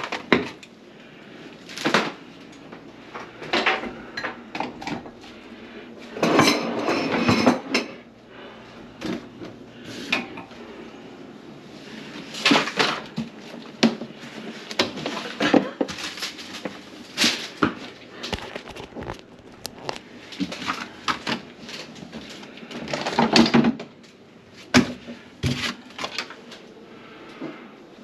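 Hard objects and plumbing parts clattering and knocking at irregular intervals under a kitchen sink, with a couple of longer rattling, scraping stretches, as a P-trap plugged with food and garbage is worked on.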